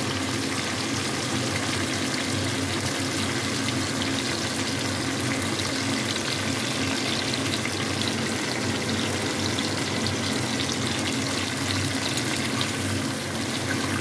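Sun-dried raw mango pieces frying in hot mustard oil in a kadai: a steady sizzle with a fine crackle throughout. This is the stage where the mango is fried until its colour changes.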